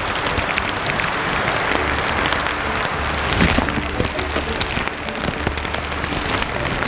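Steady rain, an even hiss dotted with many small drop ticks, a little louder about three and a half seconds in.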